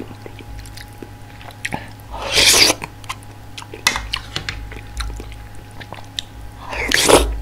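Close-miked eating sounds of soft tofu ramen from a spoon: two loud wet mouth sounds about five seconds apart as spoonfuls are taken, with soft chewing and small clicks between.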